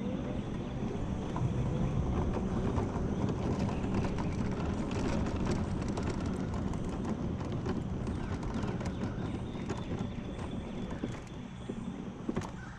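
Electric mobility scooter running along cracked asphalt: a steady rumble of the small tyres, with many small knocks and rattles from the scooter's frame over the cracks. It gets quieter near the end as the scooter slows to a stop.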